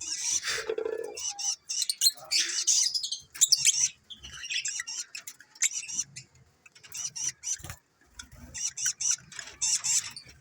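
African lovebirds chattering: a busy stream of short, high-pitched chirps and squeaks in bursts, with brief lulls about four and eight seconds in.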